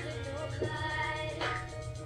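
Hip-hop song playing, a steady bass line under a quick, even ticking beat, between rapped lines.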